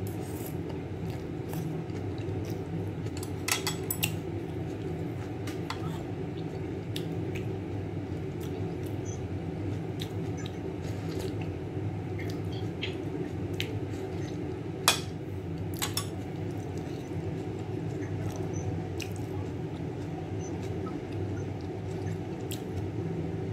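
Scattered light clicks and clinks of eating utensils against a dish, with one sharper knock about fifteen seconds in, over a steady low hum.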